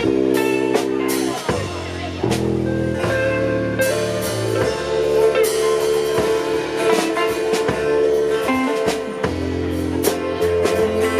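A band playing an instrumental passage: guitar over a held bass line and a drum kit, with steady drum strikes.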